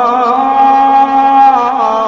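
A man's voice chanting Quran recitation in tajweed style, drawing out one long melodic note. The note wavers at first, holds steady, then drops in pitch near the end.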